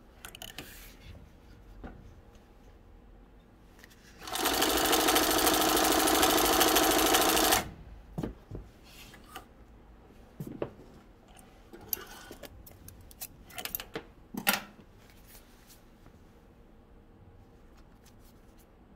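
Speedway SW-1341VS compound-feed, cylinder-bed industrial sewing machine stitching through Naugahyde. It runs at a fast, even stitch rate in a single burst of about three seconds, starting about four seconds in. Before and after it come scattered clicks and rustles as the material is handled.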